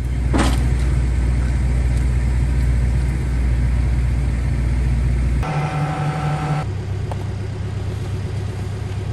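Heavy machine's engine running steadily at a low pitch, its tone changing abruptly about five and a half seconds in and again about a second later.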